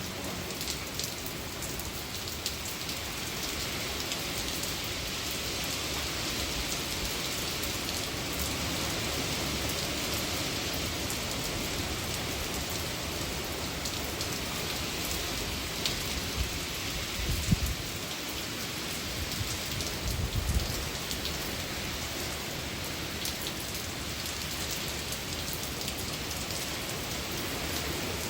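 Heavy hurricane rain falling steadily in strong wind, with two brief low thumps about 17 and 20 seconds in.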